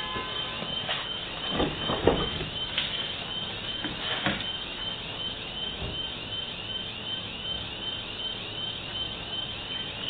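Metal roller shutter rattling and knocking as it is handled, a few sharp clanks in the first half, over steady street traffic noise. A high, rapid chirping repeats about three times a second throughout.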